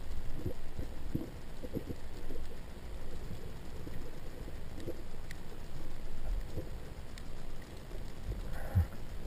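Underwater sound of a diver swimming with a speargun: a steady low rush of water with irregular soft knocks and a few faint crackles.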